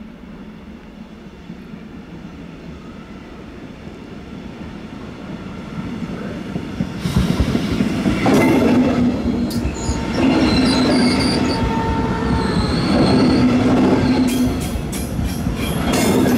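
Train passing close by, getting louder, with wheels squealing on the rails. Near the end comes a quick, even clatter of wheels over rail joints.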